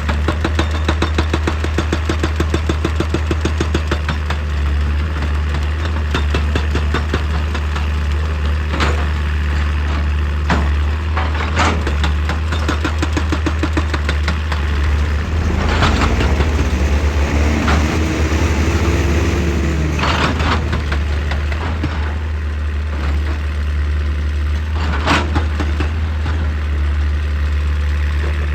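Excavator's diesel engine running steadily, with a rising and falling whine about halfway through as the machine works. Several sharp knocks, typical of the bucket striking rock and soil, come through over the engine.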